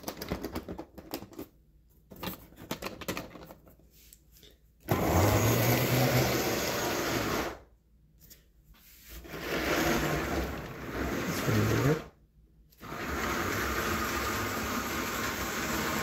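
HO-scale model locomotive's electric motor running in spurts: light clicking at first, then a steady whir that winds up in pitch each time it starts and cuts off abruptly twice, a sign of the locomotive stalling as it loses track power.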